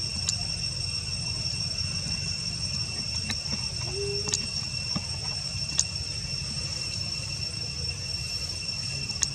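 Insects droning steadily at a high pitch, over a low rumble, with a few sharp clicks scattered through.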